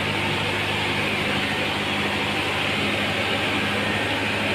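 Cummins diesel engine idling steadily, an even low hum that does not change.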